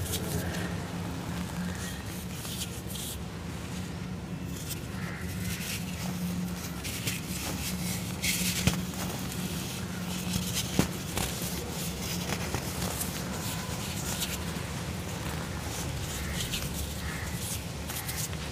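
Hands crumbling and rubbing chunks of dry grey cement, with gritty crackling and dust trickling, over a steady low hum. Two sharper snaps stand out near the middle.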